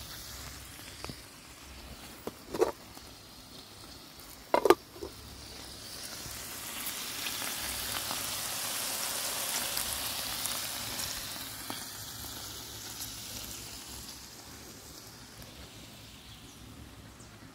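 Strips of meat frying in a pan, a steady sizzle that swells in the middle and then fades. Two short knocks come in the first few seconds.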